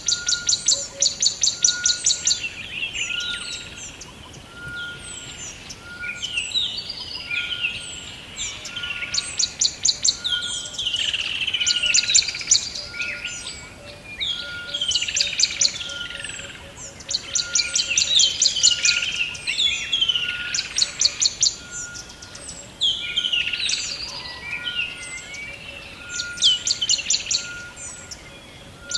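Several forest birds singing together: a rapid, high trill lasting about two seconds comes back every six to eight seconds, with falling whistled notes in between. Under them a short, even note repeats about once a second throughout.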